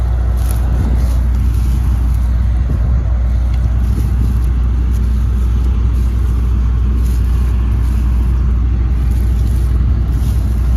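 A vehicle engine running steadily, a deep low drone with an even rumble over it.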